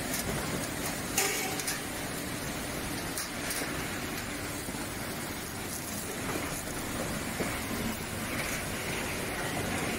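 Roller-type vegetable sorting machine and its outlet conveyor belts running, a steady mechanical noise with a few faint knocks.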